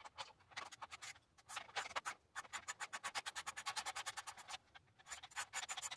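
Kobalt socket ratchet clicking rapidly, about ten clicks a second, as it turns out a 5/16 bolt, with a brief pause about four and a half seconds in.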